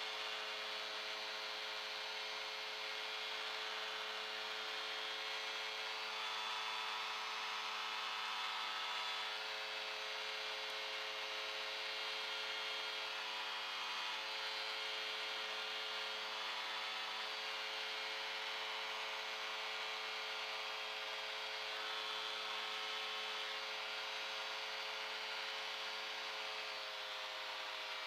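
Light aircraft piston engine and propeller running steadily at high power as the plane climbs out after a bounced landing, heard from the cockpit with a steady rush of airflow.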